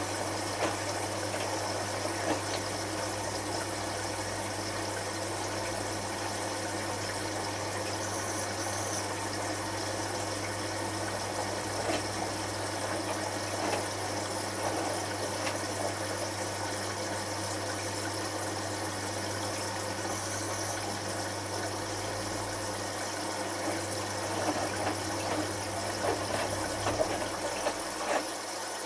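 Hotpoint HF8B593 washing machine draining during its rinse: the drain pump hums steadily while water splashes and knocks in the drum. The pump hum stops near the end.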